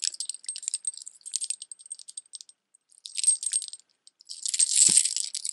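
Silver-tone metal statement necklace being handled, its domed discs and dangling metal balls clinking and jingling against each other in irregular bursts, loudest about five seconds in.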